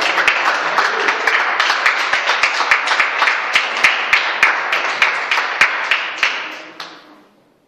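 Small group applauding by hand, a dense patter of claps with some sharp single claps standing out, dying away about seven seconds in.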